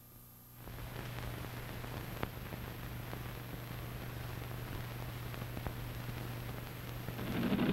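Steady hiss and low hum of an old film soundtrack, with a few faint crackles. A louder sound starts to come in near the end.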